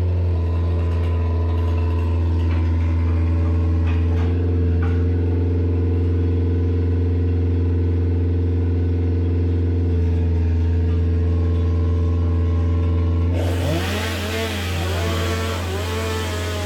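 A large engine runs steadily. About 13 seconds in, a chainsaw starts revving up and down repeatedly over it.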